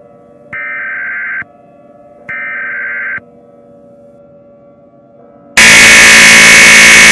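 Emergency Alert System SAME header: two short, shrill digital data bursts, each just under a second long and about a second apart, over a faint steady drone. About five and a half seconds in, a very loud, harsh blaring noise cuts in suddenly.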